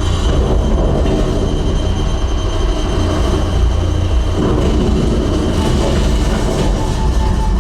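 Film soundtrack played loud through a REL T9i subwoofer and speakers, heard in the room: a deep, steady bass rumble with a noisy roar above it.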